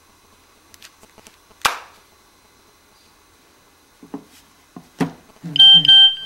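A few light clicks and one sharp tap, then more clicks; about five and a half seconds in, loud electronic tones begin, short steady beeps in pairs over a lower musical line, like a device's alert or jingle.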